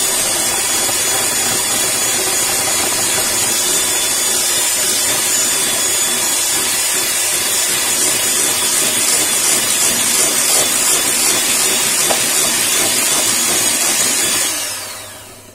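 Bajaj Majesty electric hand mixer running steadily with a high whine, its twin whisks beating butter and icing sugar into a soft, creamy mix in a glass bowl. Near the end it is switched off and winds down, the whine falling in pitch.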